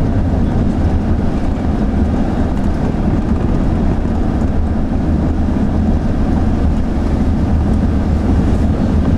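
Steady road and engine noise from inside a moving van, strongest at the low end, with no separate knocks or bangs.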